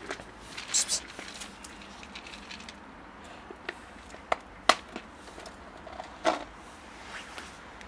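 Clip-lock plastic food container handled on concrete: a handful of sharp plastic clicks and taps, a small cluster about a second in and the loudest single click near the middle.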